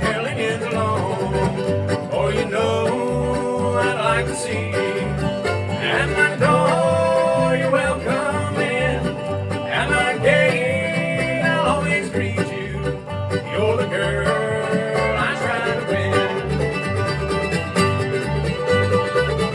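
Live bluegrass band playing an instrumental passage: rapid picked banjo and guitar over a steady upright-bass beat.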